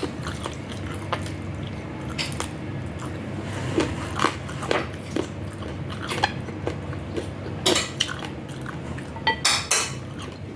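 Close eating sounds: chewing and biting food, with many small clicks and a few sharper clinks of cutlery against a plate in the second half.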